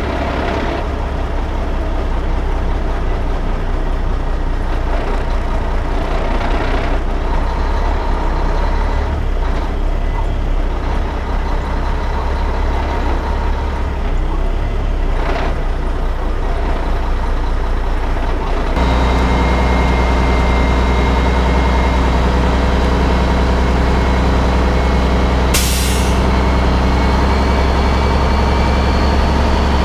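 Heavy truck diesel engine running steadily at low speed, with a few short air-brake hisses. About two-thirds of the way through, a brief, sharp air-brake hiss stands out over the steady engine.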